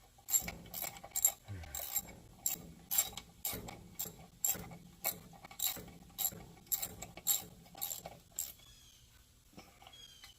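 Hand ratchet wrench clicking in steady back-and-forth strokes, about two clicks a second, stopping about eight and a half seconds in. The ratchet is one its owner feels is due for oiling.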